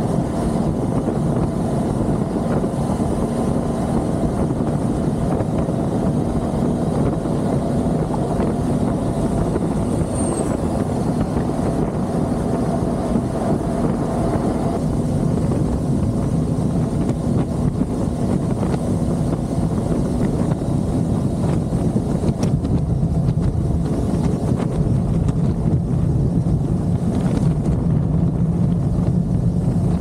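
Benelli 502C motorcycle's parallel-twin engine running at a steady road speed under wind rush on the microphone, its note settling lower in the second half.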